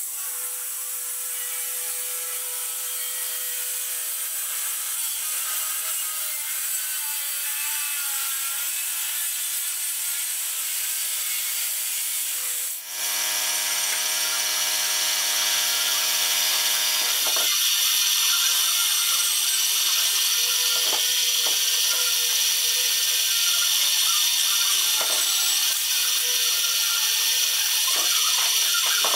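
Warco Super Mini Lathe running steadily, its tool turning a small brass part held in the chuck, with several steady whining tones over a high hiss. About halfway through the sound drops out for a moment and comes back louder.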